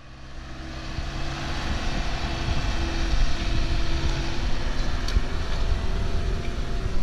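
Off-road vehicle engine running with a low rumble, growing louder over the first two seconds and then holding steady.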